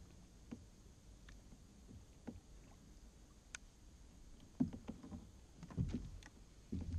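Scattered light clicks and a few dull knocks of tackle and a rod being handled against a plastic Hobie fishing kayak, with the heavier knocks in the last few seconds.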